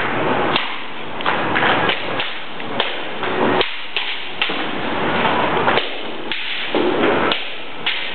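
Bamboo kendo shinai clacking against each other and striking the armour during sparring: about a dozen sharp cracks and knocks, irregularly spaced.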